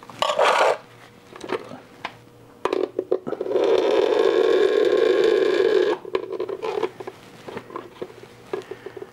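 Engine oil gushing out of the opened oil filter housing and splashing into a catch container for about two and a half seconds, after a few clicks and scrapes of the filter being handled.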